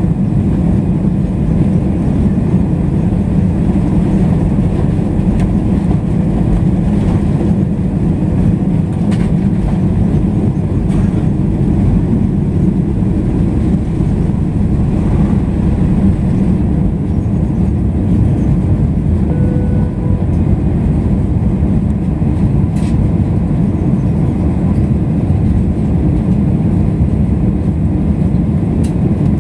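Jet airliner's engines at takeoff power heard from inside the cabin: a loud, steady rumble through the takeoff roll and climb-out.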